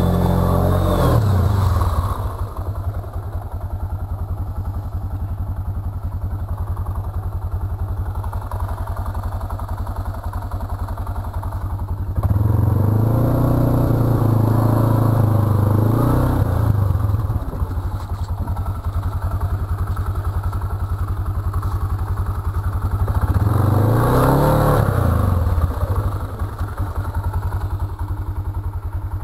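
Arctic Cat VLX 700 ATV engine running at low throttle, revving up three times: at the start, for several seconds from about twelve seconds in, and again briefly about twenty-four seconds in.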